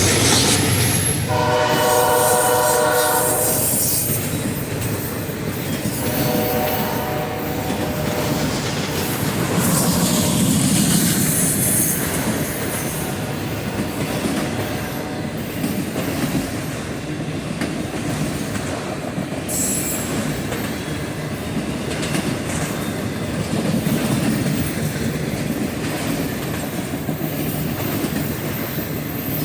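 A locomotive air horn sounds a multi-note chord twice in the first eight seconds, over a passing freight train. The train then keeps rolling past with a steady rumble of wheels on rail.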